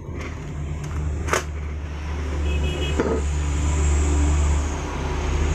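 A motor engine running with a steady low rumble, getting a little louder after the middle. A sharp click a little over a second in and a knock at about three seconds sit over it.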